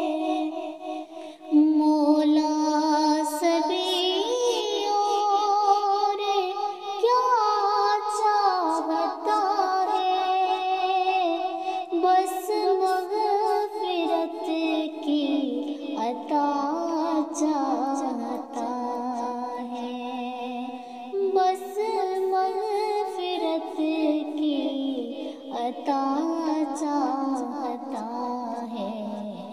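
A high solo voice singing a hamd, a devotional Islamic song in praise of God, in long, ornamented, gliding phrases.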